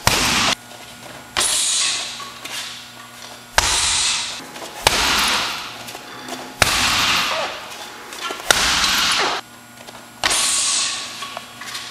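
Roundhouse kicks landing on a hanging heavy punching bag: about seven sharp smacks, one every one to two seconds, each trailing off in about a second of noise.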